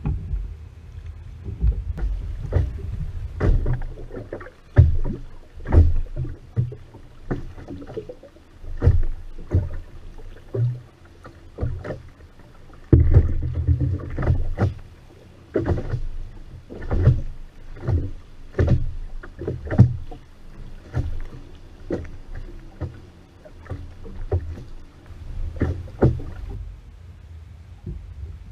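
Oars working a boat rowed Venetian style (voga veneta): a steady run of sharp knocks and splashes, roughly one a second, over a low rumble of water and boat.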